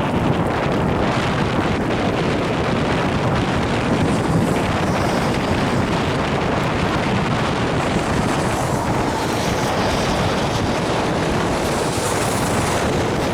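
Strong wind buffeting the microphone: a steady, loud rushing roar.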